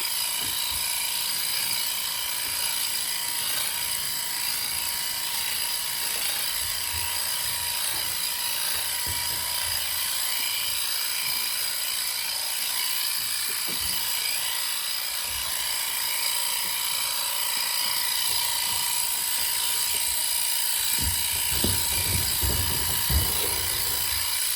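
Electric sheep shears running at a steady high whine while lambs are dagged out, with a few low knocks near the end.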